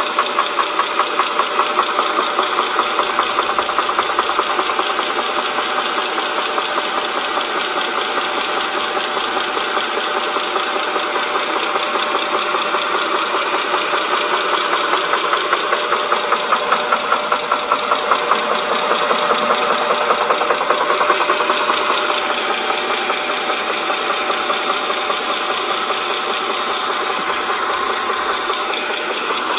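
2007 Dodge Charger's 2.7-litre V6 running with a fast, steady knocking rattle from the timing chain, under a steady high whine. The owner puts the knock down to a broken timing chain guide or tensioner.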